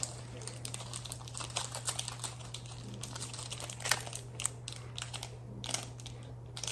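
Slime being squeezed and kneaded by hand, giving irregular small clicks and crackles, with one sharper click about four seconds in. A steady low hum runs underneath.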